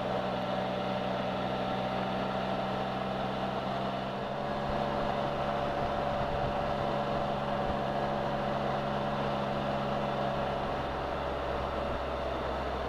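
Can-Am Spyder three-wheeled motorcycle cruising steadily at around 30 to 40 mph: a steady engine and road drone with a constant higher hum above it.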